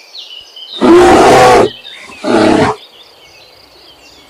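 Brown bear roaring twice: a long, loud roar about a second in and a shorter one about two and a half seconds in, with faint high chirps behind.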